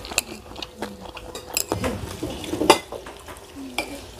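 Metal spoon scraping and clinking against a plate while scooping up rice: a string of short clinks and scrapes, the loudest nearly three seconds in.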